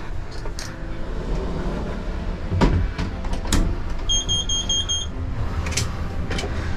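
Shipyard crane cab interior: steady low machinery rumble with scattered clicks and knocks, and a brief run of rapid high electronic beeps about four seconds in.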